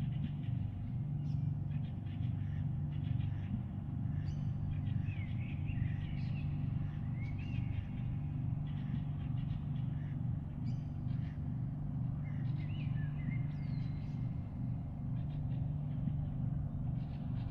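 A steady low rumbling hum of unknown source, with small birds chirping now and then over it.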